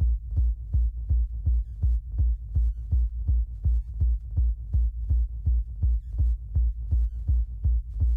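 Electronic background music with a steady, heavy beat of about two beats a second.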